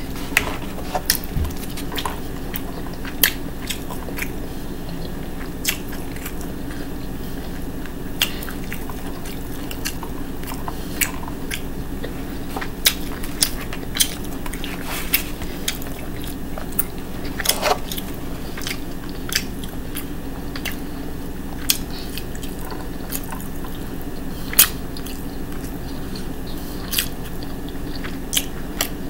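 Close-up eating sounds: chewing, with scattered sharp clicks and taps of a fork in a plastic bowl, over a steady low hum.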